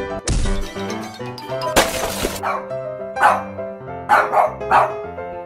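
Cartoon husky barking, several short barks in the second half, over cheerful background music. A short crash sound effect comes about two seconds in.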